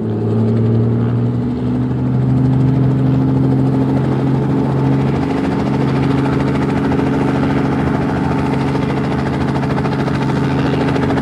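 Helicopter running with a steady, loud engine drone that rises slightly in pitch over the first couple of seconds and then holds level.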